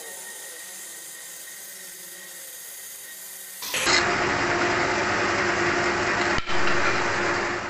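Woodworking power tool running steadily. It becomes much louder and denser after a cut about four seconds in, then runs on with a steady low tone and a brief dropout near the end.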